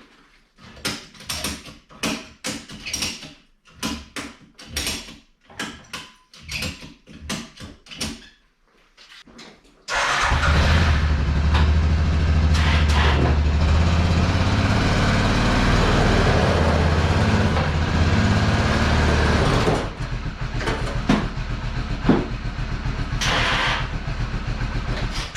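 Short irregular knocks and rattles, then a motor-driven lift starts abruptly about ten seconds in with a loud steady hum, raising the rear of a snowmobile. About ten seconds later it drops to a quieter steady running, with a few knocks.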